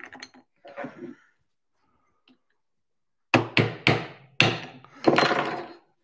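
Mallet striking a steel drift against a bolt in a plastic knob's hex socket: four sharp taps a little over halfway through, then a short clattering rattle.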